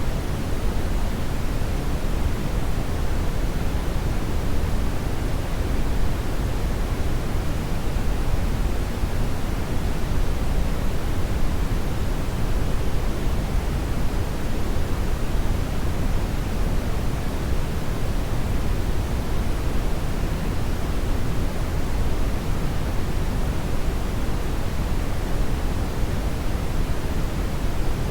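Hair dryer blowing steadily: an even, unbroken rush of air noise, fullest in the low end, with no change in speed or pitch.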